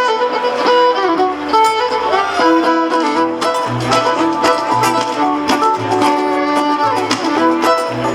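Live acoustic string band playing an instrumental passage: fiddle holding long melody notes over plucked banjo and guitar, with low bass notes coming in about three and a half seconds in.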